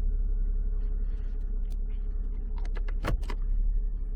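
Steady low hum of a 3.6-litre V6 idling, heard from inside the car's cabin. A few sharp clicks come in quick succession about two and a half to three seconds in, the loudest just after three seconds.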